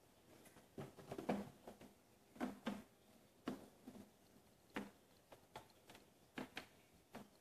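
British longhair kittens scrabbling and tumbling on a carpeted cat tree: irregular soft knocks, thumps and claw scratches, a dozen or so spread unevenly.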